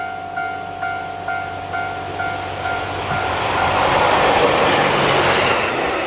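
Level-crossing warning bell dinging about twice a second while a JR Hokkaido H100 diesel-electric railcar passes close by. The railcar's running noise swells over the bell from about three seconds in, peaks near four and a half seconds, then fades.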